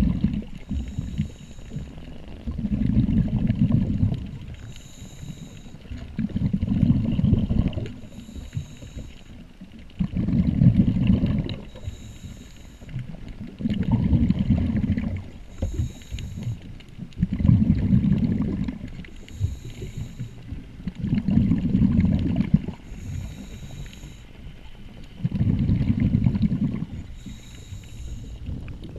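A diver breathing through a regulator underwater, about one breath every four seconds. Each breath is a short hiss on the inhale, followed by a louder low rumble of exhaled bubbles.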